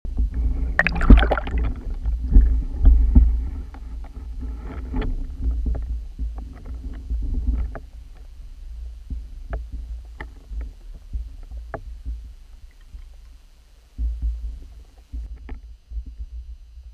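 Underwater camera audio in lake water: a low rumble with a loud, busy stretch of knocks and water movement in the first few seconds, then quieter, with scattered sharp clicks and knocks.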